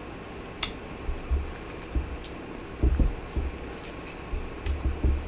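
Close-miked eating sounds: chewing with wet smacks and sharp mouth clicks over soft low thuds, coming irregularly every half second or so.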